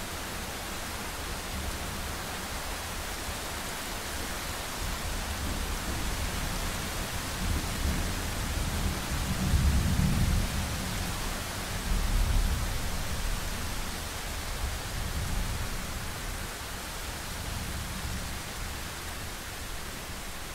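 Thunderstorm: steady rain hiss with a low rolling rumble of thunder that builds in the middle, peaking twice about ten and twelve seconds in, then dying away.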